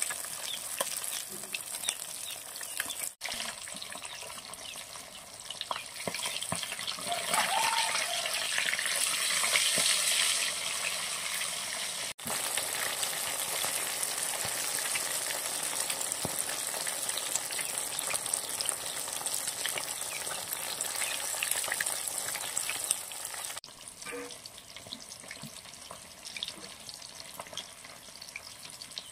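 Rohu fish pieces deep-frying in a large metal kadai, the oil sizzling with a dense hiss, while a metal spatula scrapes and turns them. The sizzle is loudest in the middle stretch, broken by three brief cuts, and quieter after the last one near the end.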